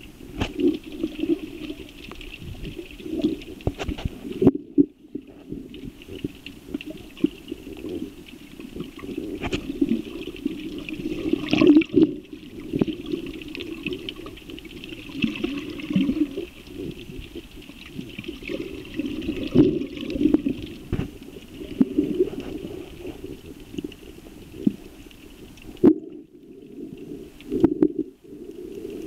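Muffled underwater sound heard through a waterproof camera housing: a steady swishing of water with irregular knocks and bumps throughout, and a couple of brief moments where it goes almost quiet.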